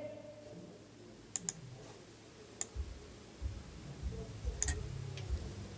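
Faint scattered clicks from computer controls, five or so sharp ticks, with soft low thuds from about three seconds in.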